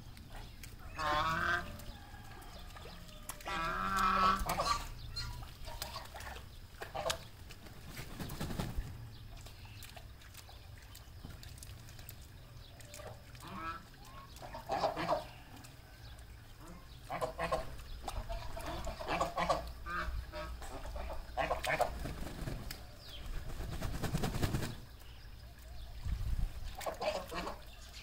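White domestic ducks calling with harsh, honking quacks in scattered bursts: a run of calls about a second in and another about four seconds in, then more calls on and off through the rest.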